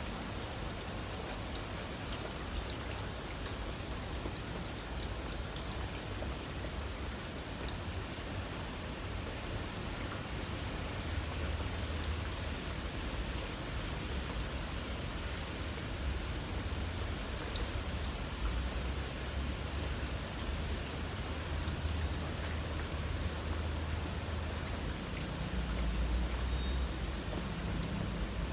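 Insects calling in a steady, high-pitched, faintly pulsing trill over the even hiss of light rain. A low rumble underneath grows louder near the end.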